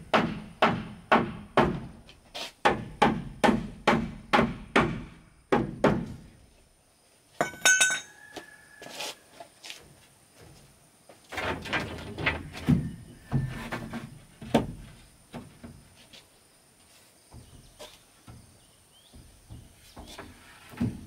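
Hammer blows on wood, about two to three a second for the first six seconds, then a second, less even run of blows from about eleven to fifteen seconds. Between them comes a short rattle with a brief ringing tone, and softer scattered knocks follow.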